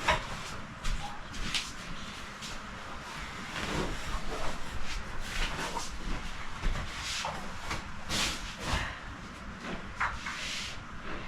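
Bed covers and pillows rustling in irregular bursts as they are handled and spread on a bed.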